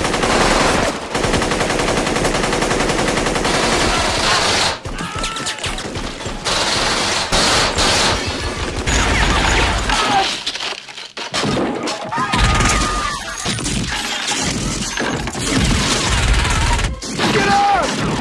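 MAC-10 submachine gun fire from a film soundtrack: long, very rapid bursts broken by short pauses.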